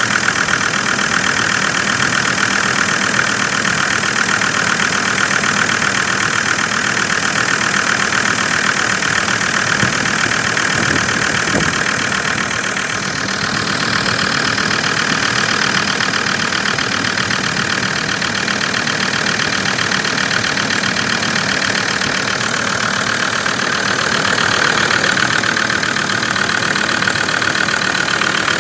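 Land Rover Discovery 2's Td5 five-cylinder turbodiesel idling cold at −2 °C, running unevenly and knocking; the owner takes the rough running for a cylinder misfiring.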